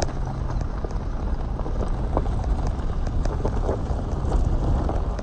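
Wind buffeting a phone's microphone outdoors: a steady low rumble with irregular crackles running through it.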